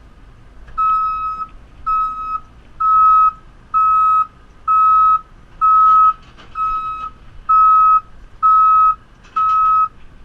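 JCB 3CX backhoe loader's reversing alarm beeping, a loud single high tone about once a second, starting about a second in, over the machine's low engine rumble. The beeping is the sign that the machine is in reverse.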